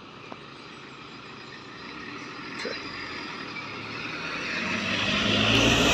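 Toyota HiAce minibus approaching at speed. Its engine and tyre noise grow steadily louder as it nears.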